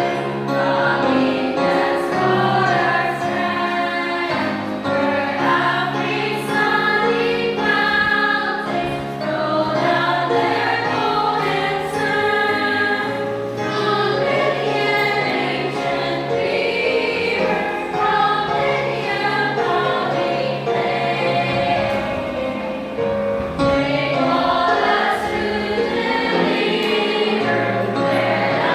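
Choral music: many voices singing together with accompaniment, at a steady level.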